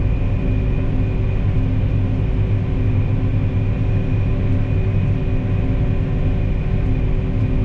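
Vehicle engine running at a steady speed while driving along: a constant low drone with a faint, steady high whine above it.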